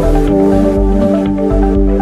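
Background electronic music with sustained synth notes over a steady low beat.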